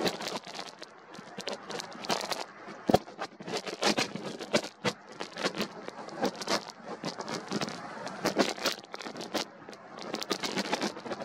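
Strong wind buffeting the camera's microphone, heard as an irregular crackling rush of gusts.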